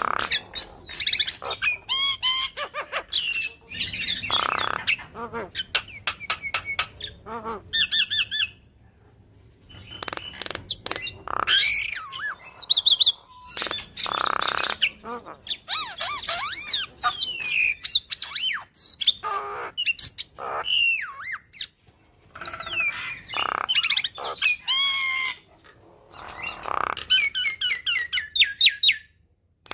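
Javan myna (white-vented myna) singing a long, varied run of rising and falling whistles, fast stuttering trills and harsh squawks, with a few short pauses, as it pours out its repertoire of learned song phrases.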